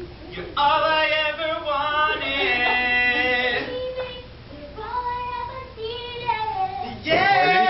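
Young female voices singing, with long held notes in two phrases and a short break about four seconds in.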